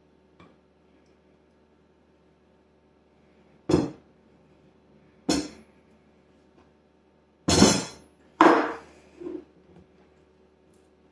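Hard parts, likely metal engine-kit parts, being handled and set down: five separate clinks and knocks a second or two apart, the loudest two close together about two-thirds of the way in.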